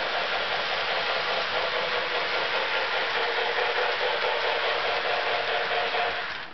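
Lionel model steam train running steadily around three-rail track, an even running noise with a faint steady hum in it. The sound drops away sharply near the end.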